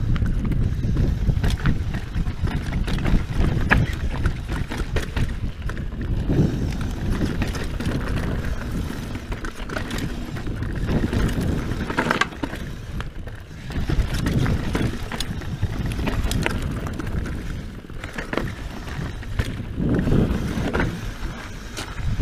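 Scott Genius full-suspension mountain bike riding down a dry, rocky dirt trail: tyres rolling over dirt and stones with a steady low rumble, and frequent short clicks and clatters from the bike as it bounces over rocks.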